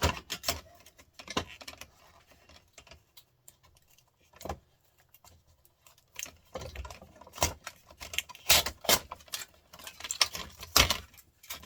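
Irregular clicks, clinks and light rattling of small metal and plastic TV parts being handled and pried apart by hand. The sounds are sparse for a few seconds in the middle and come thick and fast in the later part.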